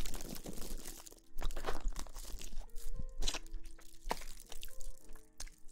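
Close-miked irregular crunching and crackling, many quick strokes, with faint steady tones underneath.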